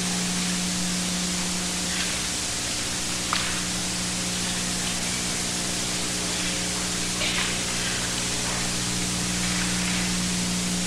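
Steady hiss with a low hum, the background noise of an old videotape recording, with a few faint knocks.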